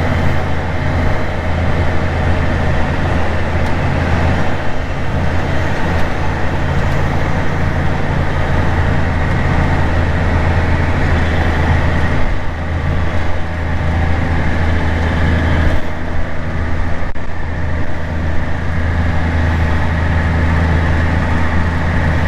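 Tractor diesel engine running steadily under load, a constant low drone heard from inside the cab.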